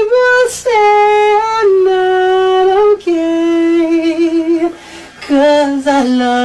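A high solo voice humming or singing a slow melody without words, in long held notes with a slight waver that step downward in pitch, with a brief pause for breath before the last, lowest note.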